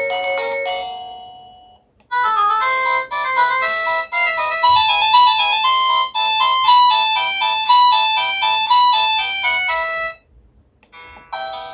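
Cacazi HYA10 wireless doorbell playing its electronic chime tunes. One tune dies away in the first couple of seconds, a quick melody of short beeping notes plays for about eight seconds and stops, and the next ringtone starts just before the end.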